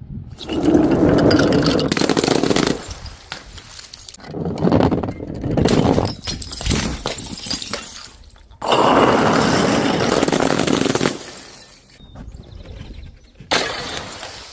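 Glass bottles breaking and crunching, in three long stretches of a couple of seconds each and a shorter one near the end.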